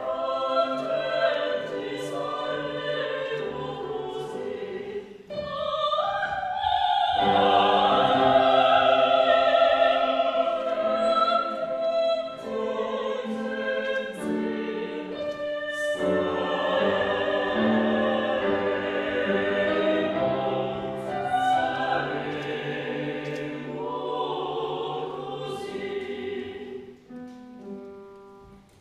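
Several voices singing opera together in classical style, with a short break about five seconds in before the singing comes back louder.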